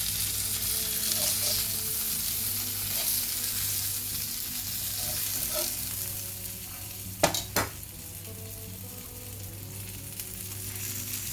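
Food sizzling in a hot pan with olive oil, a steady frying hiss. About seven seconds in come two sharp knocks in quick succession, after which the sizzle is a little quieter.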